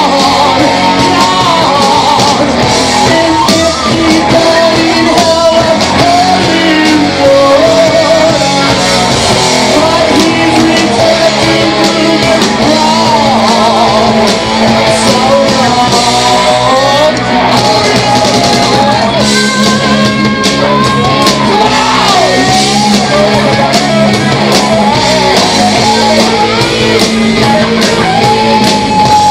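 Live rock band playing loud, a man singing over electric guitars, bass and drums.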